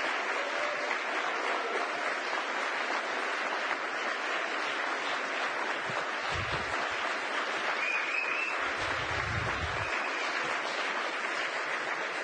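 Audience applauding steadily, a dense even clapping that interrupts a speech from the podium.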